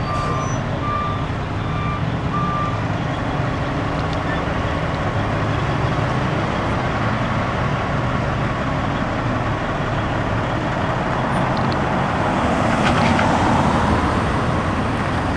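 Large truck engines idling with a steady low rumble, while a reversing alarm beeps four times in the first few seconds. A vehicle drives past, and its noise swells near the end.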